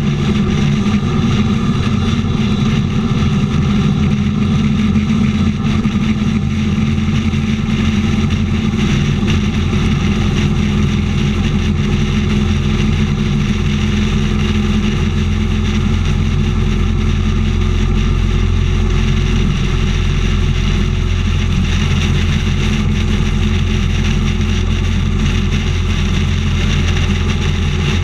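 Motorcycle engine running steadily at highway cruising speed, heard from a camera mounted on the bike, with wind and road noise rushing past.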